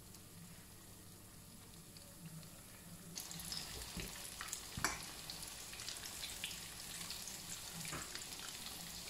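Breaded rice-and-vegetable patties shallow-frying in vegetable oil in a pan: a soft, crackling sizzle that grows louder about three seconds in. A few sharp clicks come as a spatula and fork turn the patties in the pan.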